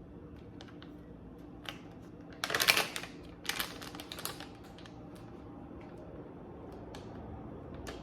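Small kitchen items being handled on a counter: a quick clatter of clicks and rattles, loudest about two and a half seconds in, then a second shorter clatter, with a few single ticks before and after.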